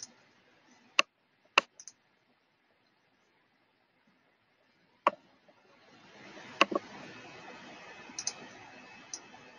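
Several separate, sharp computer mouse clicks spaced a second or more apart, with a faint steady hiss coming in about halfway through.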